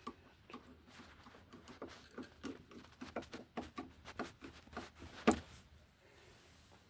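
Small irregular clicks, taps and rattles of wiring being handled and pushed back into an electrical box, with one sharper, louder click about five seconds in.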